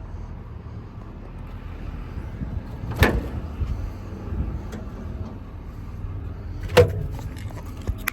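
Two sharp clunks about four seconds apart over a steady low rumble.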